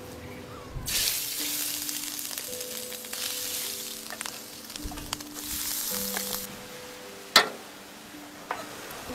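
Minced beef ladled into a large hot steel pan, sizzling in two long loud bursts as each scoop goes in. A single sharp knock comes about seven seconds in.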